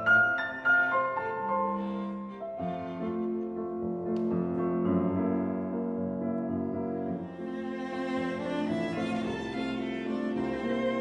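Instrumental background music led by bowed strings, violin and cello, with sustained melodic notes.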